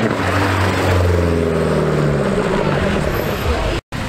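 Car engine running, its note sliding steadily lower over the first two and a half seconds.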